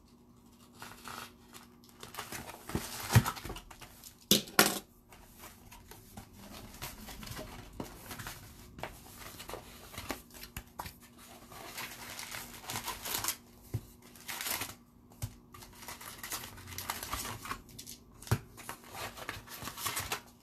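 Irregular crinkling, rustling and tearing of plastic wrapping and card packs as a box of Upper Deck Series Two hockey cards is unpacked, the packs being pulled out of the cardboard box.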